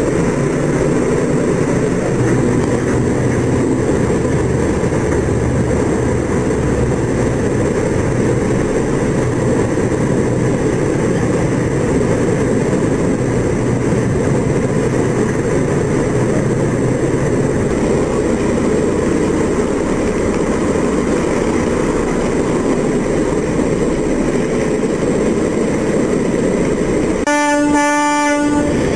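Heavy engines of the L-CAT landing catamaran running steadily while its bow ramp is raised. Near the end a single horn blast sounds for about a second and a half.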